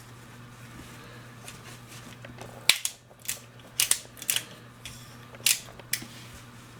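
Sharp metallic clicks of a Llama Comanche III .357 revolver's freshly oiled cylinder crane being swung out and snapped shut again. There are about eight clicks over three seconds, starting nearly three seconds in.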